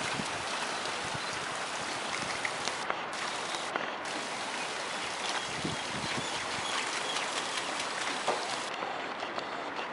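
Steady rushing noise of running water, dotted with many small ticks.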